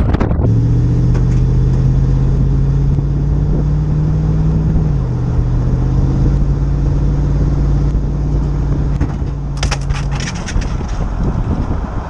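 Truck engine and road noise while driving, with the engine's pitch stepping down once about five seconds in. The engine sound drops away about ten seconds in, with a short burst of scratchy rattling just before.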